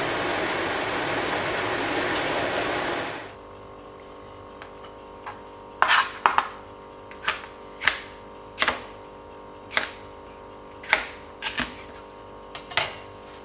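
A steady rushing noise that cuts off abruptly about three seconds in, followed by about a dozen irregular sharp knocks over a faint steady hum.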